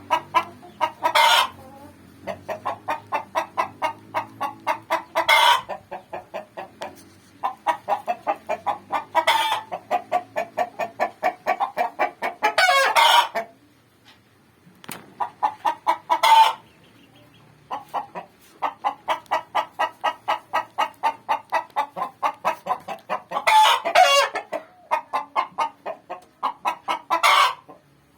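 A hen's laying cackle. Runs of quick clucks, about four a second, each ending in a louder, drawn-out squawk, repeated about seven times. It is the hen's call when she is about to lay an egg.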